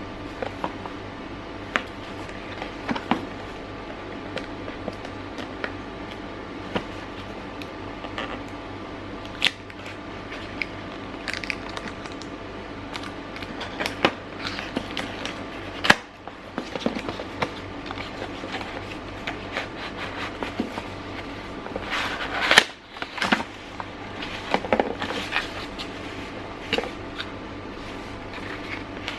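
Cardboard and plastic packaging being handled and opened by hand: scattered crinkles, taps and rustles, busiest in the second half, over a faint steady hum.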